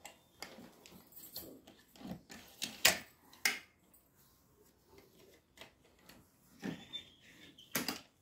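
Telescopic trolley handle of a soft suitcase being pulled up and extended, with a few sharp clicks and knocks as its metal sections slide and catch, the loudest around three seconds in, over light handling noise.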